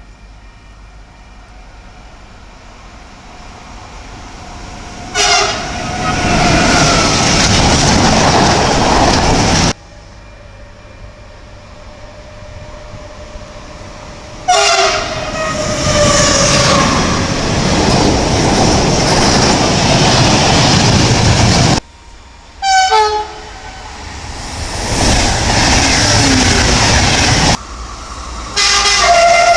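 Four trains in turn, each sounding its horn and then running past at speed with a loud rush and wheel clatter, with abrupt changes from one pass to the next. The second horn drops in pitch as its train goes by. The third is a quick string of short toots.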